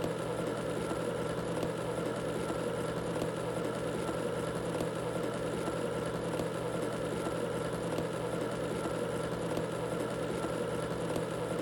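Water boiling hard in a kettle: a steady rolling rumble and hiss that holds unchanged throughout.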